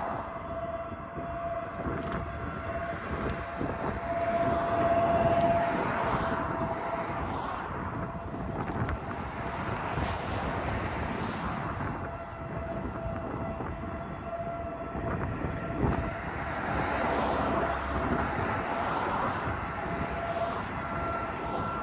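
Outdoor warning siren sounding one steady, unbroken tone that slowly swells and fades, over wind noise and traffic passing on the highway.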